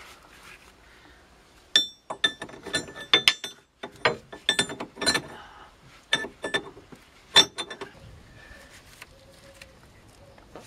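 Metal hand tools clinking against a car's steering tie rod. A run of about a dozen sharp, irregular metallic clinks with a ringing note starts about two seconds in and stops around eight seconds.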